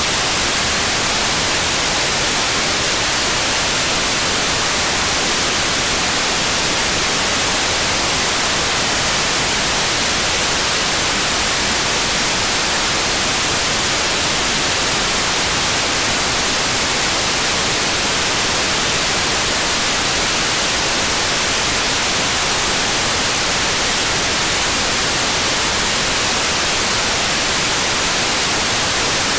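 Steady hiss of FM-demodulated receiver noise from an RTL-SDR tuned to 435.7 MHz with the squelch open. It is even throughout, with no satellite data burst breaking through.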